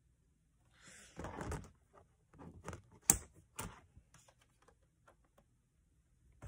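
Scissors and a cardboard backing card being handled: a short rustling scrape about a second in, then a run of sharp snips and clicks, the loudest about three seconds in, followed by a few faint ticks.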